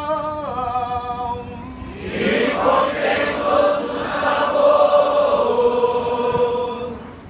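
Congregation singing at an open-air Mass: one voice holds a sung note with vibrato, then, about two seconds in, many voices join and hold long notes together until they stop near the end.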